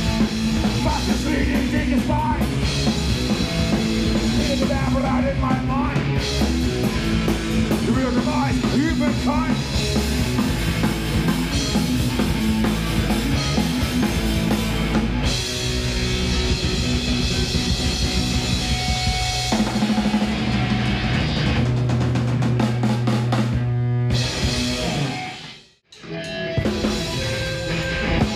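Live rock band playing loud, with electric guitars, bass and a drum kit. About three-quarters of the way through, the sound dies away to a moment of near silence, and then the band comes back in.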